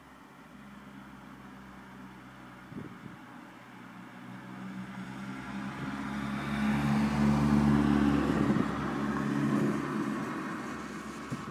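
A car passing by: engine hum and tyre noise grow louder, peak about seven to eight seconds in, then fade away.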